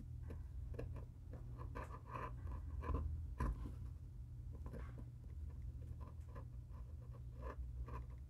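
Small carving knife blade cutting detail lines into a hard figured-maple lure body, a run of short, irregular scratchy strokes as thin shavings curl off the wood.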